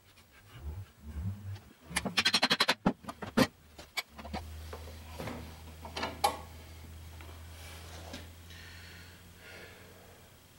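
Hand work on a steel leaf spring pack held in C-clamps, being restacked before its center bolt goes in: a quick rattling run of about eight metal clicks about two seconds in, then a couple of sharp metal knocks. After that a steady low hum runs under a few fainter knocks and handling sounds.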